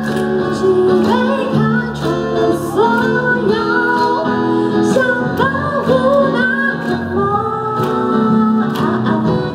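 Live band music over a PA: a woman singing a melodic line, accompanied by acoustic guitar and band.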